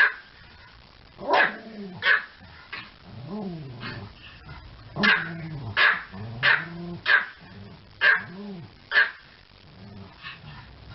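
Pomeranian puppy barking and yipping, about a dozen short yaps in irregular bursts, some with a pitch that rises and falls.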